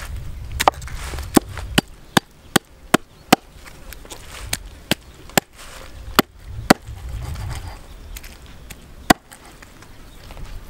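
Knife chopping a snake into pieces on a round wooden chopping block: about a dozen sharp knocks, a steady run of them over the first three seconds or so, then scattered strikes, the last about nine seconds in.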